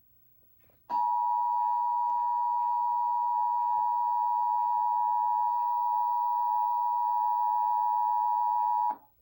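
Emergency Alert System two-tone attention signal, the alarm that announces a severe thunderstorm warning. It is a steady, high two-note tone that starts about a second in, holds for about eight seconds and cuts off suddenly near the end. It plays from an old CRT TV-VCR combo's speaker.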